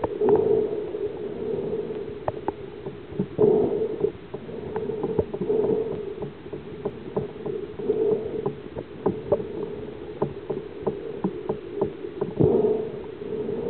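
Muffled underwater sound picked up by a submerged camera: a low water noise that swells and fades every couple of seconds, with scattered sharp clicks, about two or three a second through the middle stretch.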